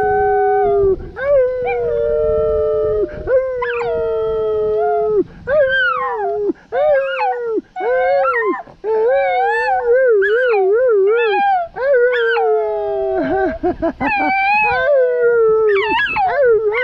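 Small dog howling, one drawn-out howl after another. Some are held level for a second or two; others waver up and down in pitch, with short breaks between them.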